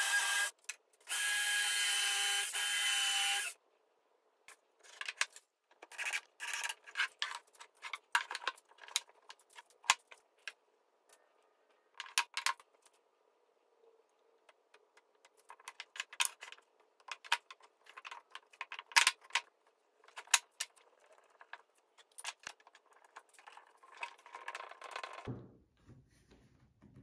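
A DeWalt cordless drill runs in two short spells, boring into pine boards, and stops about three and a half seconds in. Then come scattered knocks, clicks and rubbing as wooden parts, a glue bottle and bar clamps are handled on the workbench.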